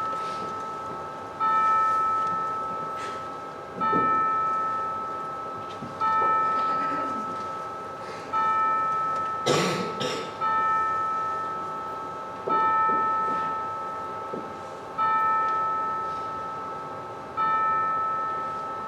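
A church bell tolling: eight single strikes on the same note, about every two and a quarter seconds, each ringing out and fading before the next. A short sharp noise sounds about halfway through.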